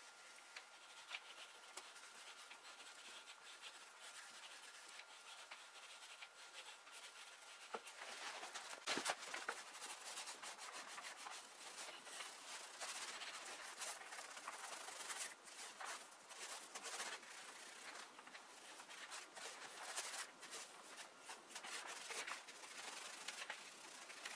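A brush rubbing in repeated strokes over a bare wooden chair seat, spreading black finish; quiet for the first eight seconds or so, then the strokes come steadily and louder.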